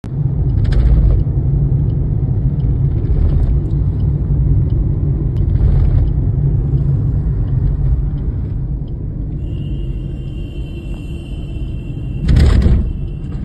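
Steady low rumble of a car being driven, heard inside the cabin. A faint high steady tone comes in during the last few seconds, and a short louder rush comes near the end.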